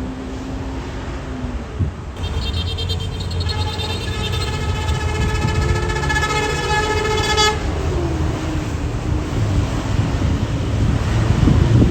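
Tour bus's basuri telolet horn sounding one long, steady multi-tone blast for about five seconds, starting about two seconds in, over the rumble of a passing bus engine. The engine grows louder toward the end.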